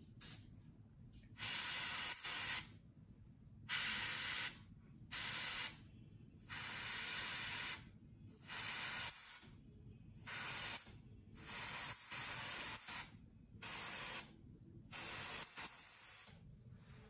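Airbrush spraying paint in about nine short bursts of hiss, each half a second to a second and a half long, starting and stopping sharply.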